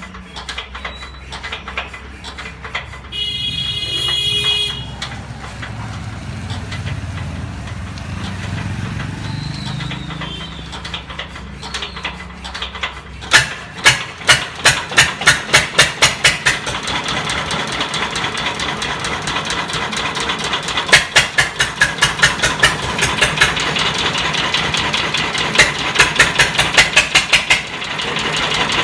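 Field Marshal 8 HP single-cylinder diesel engine being hand-cranked, its heavy flywheels turning over with a low rumble, until it fires about 13 seconds in. It then runs with a regular sharp knock of about four beats a second, on test after repair.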